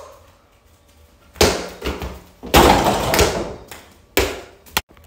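Thuds and a rattling clatter from play at an over-the-door mini basketball hoop. There is a thump about a second and a half in, another just after, and a longer rattle about a second later. Three short sharp taps come near the end.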